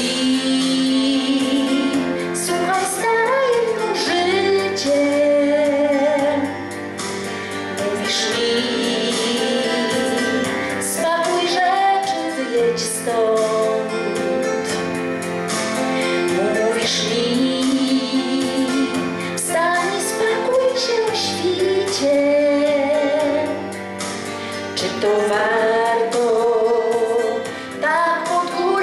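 A woman singing a song through a microphone over instrumental accompaniment, holding long notes with vibrato.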